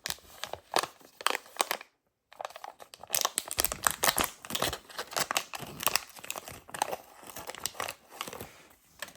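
A small plastic blind-bag pack being torn open and crinkled by hand: dense, irregular crackling and rustling, with a brief pause about two seconds in.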